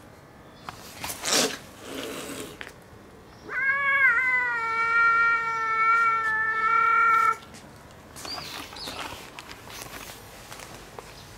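A street cat's long, steady yowl lasting about four seconds, given as a territorial warning while it faces off with a rival cat. Two short noisy bursts come before it.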